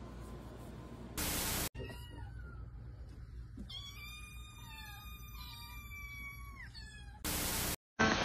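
A tiny kitten mewing: a few short high mews, then one long drawn-out mew. A short burst of loud hiss comes about a second in and again near the end.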